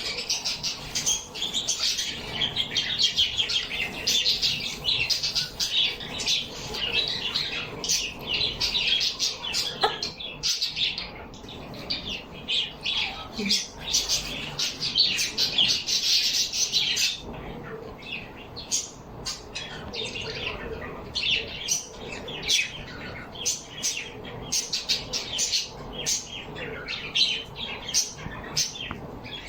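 Small pet birds chirping and chattering as a group: a dense, continuous stream of quick high chirps that thins out to scattered chirps a little over halfway through.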